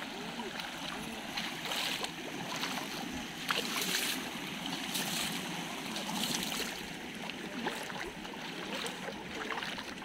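Fast-flowing floodwater rushing over a road, a steady churning hiss that swells louder several times.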